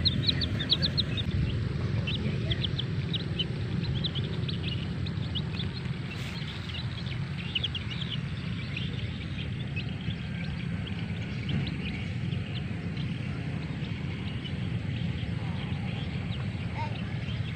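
Baby chicks peeping: many short, high-pitched cheeps, thick for the first half and sparser after, over a steady low rumble.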